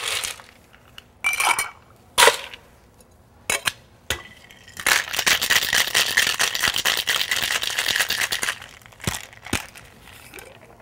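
Ice clinking and knocking into a cocktail shaker, then the shaker shaken with the ice rattling rapidly for about four seconds from about five seconds in, and a couple of knocks as it is set down.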